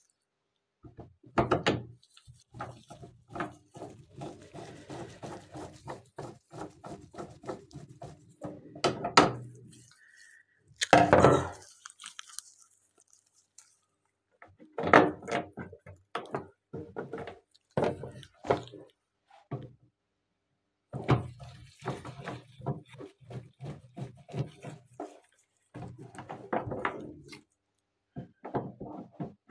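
Irregular clicks, knocks and scraping of hard plastic washing-machine lid parts and a screwdriver being handled while the lid's hinge and lock are fitted, with a few louder thunks.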